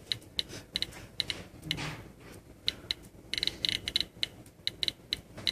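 Geiger counter clicking at random intervals, several clicks a second with a quick flurry about three and a half seconds in. Each click is one detected radiation event.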